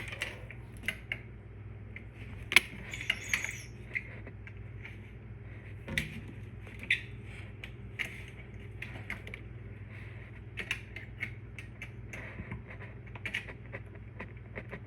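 Irregular light clicks and taps of small hard parts being handled and worked loose, over a steady low hum. A few sharper clicks stand out, about two and a half, six and seven seconds in.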